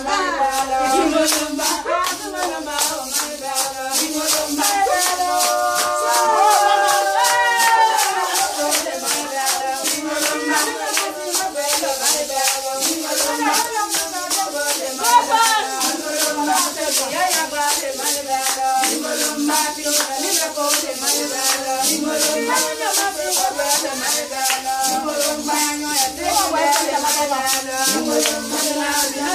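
Music with singing voices over a fast, steady rattling beat.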